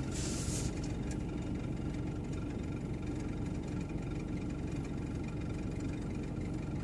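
2012 Toyota Camry engine idling steadily in drive with the brake held, the condition in which the owner hears a clicking of unknown origin. A short hiss at the start and a faint click about a second in.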